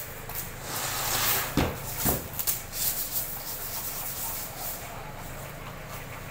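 Plywood panels being handled in a plywood repair shed: a scraping rush, then two sharp wooden knocks about half a second apart and a few lighter clicks, over a steady low hum.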